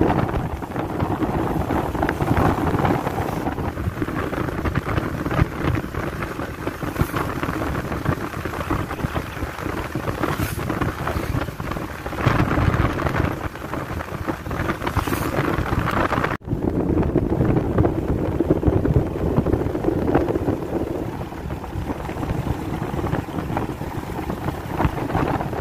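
Wind rushing over the microphone with the motorcycle's road and engine noise while riding at speed. The sound breaks off for an instant about two-thirds of the way through.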